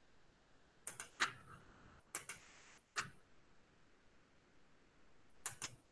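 Computer mouse clicks: a handful of short, sharp clicks, some in quick pairs, with silence between them.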